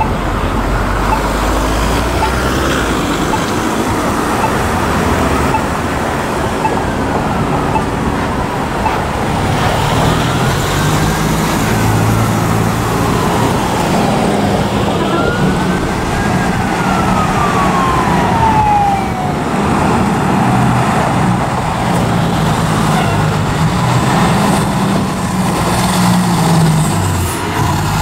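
Fire apparatus responding with a siren that slowly wails up and down several times, while a heavy diesel fire truck engine runs past close by in road traffic.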